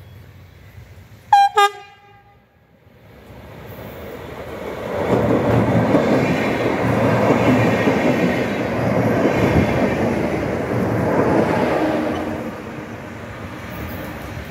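Terrasur UTS-444 electric multiple unit sounding two short blasts on its horn about a second in, then running past close by: a rumble of wheels on rails that rises, stays loud for several seconds and fades near the end.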